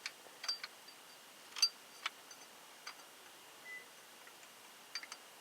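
Scattered light metallic clicks and clinks, about eight of them with the loudest about a second and a half in: a bolt and metal parts being handled as the top mounting bolt of a power steering pump is started.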